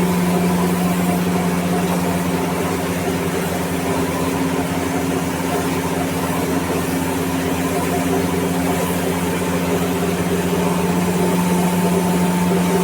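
A motor running with a steady hum and an even hiss above it, unchanging throughout.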